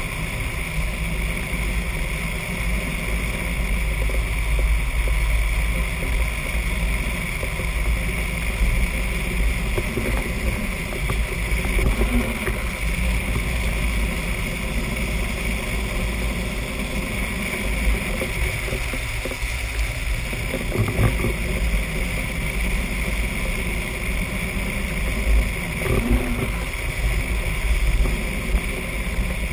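Drift trike rolling fast down an asphalt road: steady wind rumble on the microphone mixed with the rolling noise of the wheels, with a few brief louder surges along the way.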